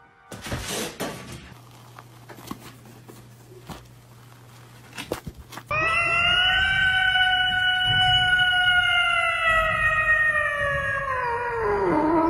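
A cat's long drawn-out yowl, one held note lasting about six seconds that sags slowly and drops in pitch at the end. Before it come faint clicks over a low hum.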